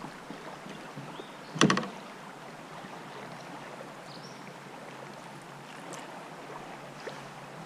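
Handling noise on a plastic sit-on-top kayak: one short, sharp knock about a second and a half in, then a few faint ticks, over a steady low hiss of the river.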